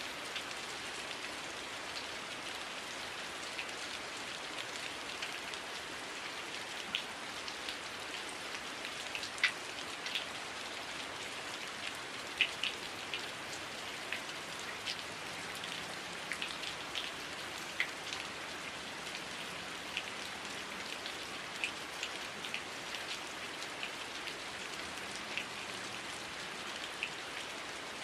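Heavy rain falling steadily, a constant hiss with many sharp drop ticks scattered through it.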